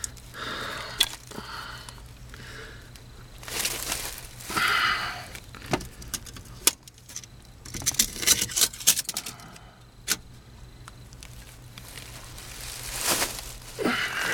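Irregular scraping and rustling with sharp metallic clinks, like a person shifting about and handling tools or gear, under a steady low hum.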